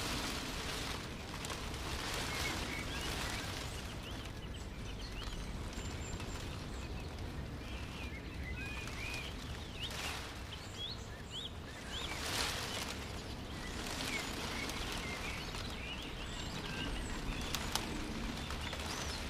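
Small birds chirping and twittering in many short, scattered calls over a steady outdoor hiss that swells and fades several times.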